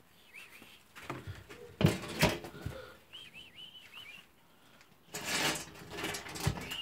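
Two sharp knocks on the metal lid of a drum that a rabbit ends up sitting on. They are followed by a quick run of about five short high chirps, rustling, and one more chirp near the end.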